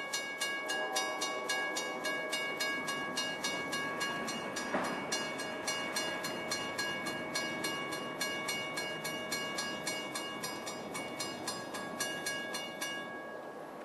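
Railroad grade-crossing warning bell ringing steadily at about three strokes a second, warning of an approaching train; it stops suddenly near the end.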